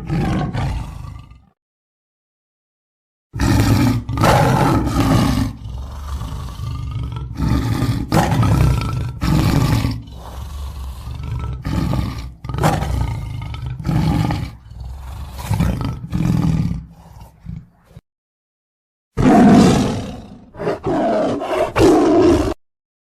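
Lion roaring: a short call, then after a pause a long bout of repeated deep roars, pulse after pulse for about fifteen seconds, growing shorter and weaker toward the end. After a second pause it roars loudly again near the end.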